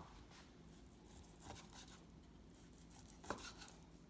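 Near silence, broken by two faint knocks of a knife on a cutting board while smoked brisket is sliced, one about a second and a half in and a sharper one near the end.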